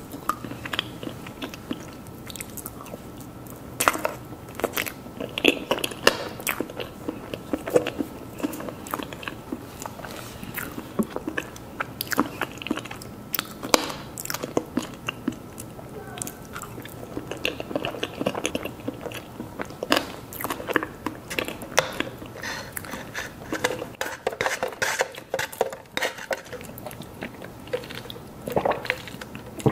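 Close-miked eating of mousse cake: a person bites and chews, with many short, irregular mouth clicks and smacks.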